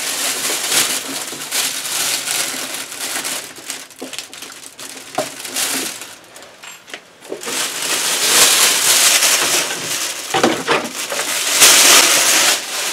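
Clear plastic bag crinkling and rustling as it is worked loose and pulled off by hand, in uneven spells, loudest in the second half.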